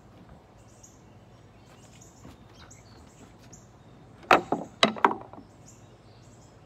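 A dog barking three times in quick succession about four seconds in, while small birds chirp faintly throughout.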